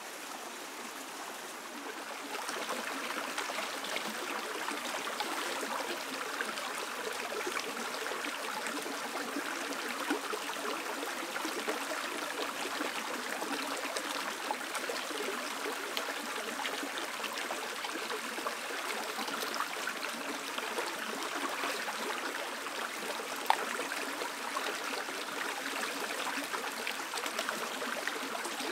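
Shallow rocky stream running and trickling over stones in a steady rush, which grows louder a couple of seconds in. Near the end there is a single sharp click.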